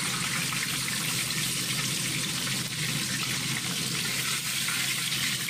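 Chicken frying in hot oil in a pan: a steady sizzle.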